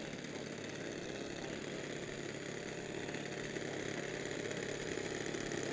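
Twin engines of a large RC P-38 Lightning warbird model running steadily on the ground, growing gradually louder just before takeoff.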